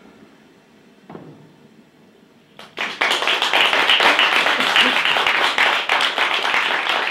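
Audience applauding: dense clapping that breaks out suddenly about three seconds in after a quiet pause.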